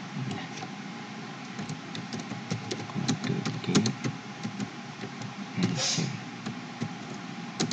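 Typing on a computer keyboard: a run of quick, irregular key clicks over a steady background hiss, with a brief hiss about six seconds in.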